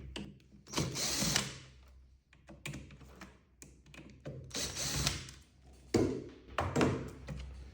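Cordless screwdriver running in short bursts, backing out the two screws that hold a fan coil's control box, with small clicks and knocks of handling between.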